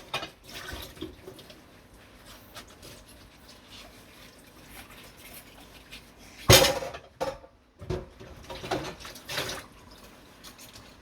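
Dishes being washed by hand at a sink: drips of water and small clinks of dishware, with one loud clatter of dishes about six and a half seconds in, followed by a few lighter knocks.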